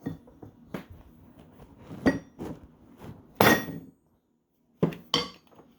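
Steel transmission parts of a 1960 Ford three-speed clinking and tapping against each other as the input bearing is worked back on and lined up. There are a handful of sharp metallic clinks, and the loudest one, about three and a half seconds in, rings on briefly.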